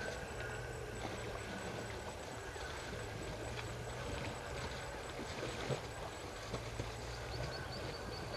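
African elephants wallowing in wet mud, with sloshing, splashing and irregular squelches and soft knocks as they roll and stand up in the mud.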